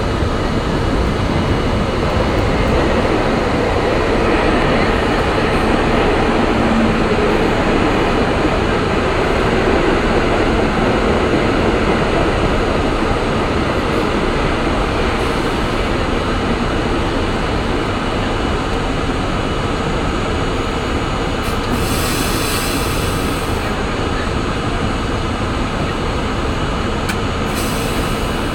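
R32 subway car running along the track underground, a steady loud rumble of wheels and running gear. Two brief high-pitched bursts come through, the first about two-thirds of the way in and a shorter one near the end.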